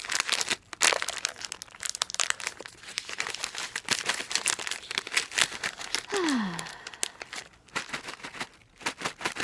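Plastic snack bag crinkling and crackling as it is handled and opened, in dense irregular bursts, easing off about three quarters of the way through. A short falling tone sounds about six seconds in.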